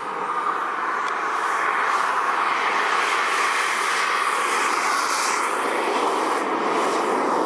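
K-140 turbine of a Viper model jet running at high power: a loud, steady jet rush with a thin high whine held level above it. The noise swells in the first half-second, then holds.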